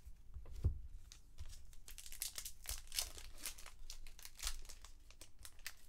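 Plastic wrapper of a 2019 Bowman baseball card value pack crinkling and tearing as the pack is opened, a faint run of quick crackles.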